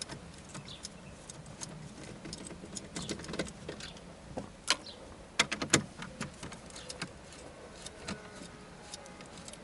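Scattered light clicks and clinks of dashboard trim, screws and tools being handled during car radio removal, with a quick cluster of sharper clicks about halfway through.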